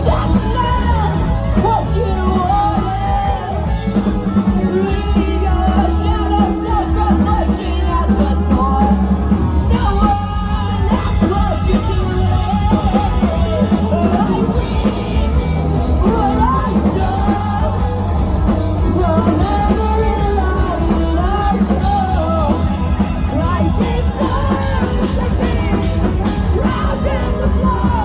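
A live rock band playing a song, with sung vocals over drums, bass guitar and electric guitars.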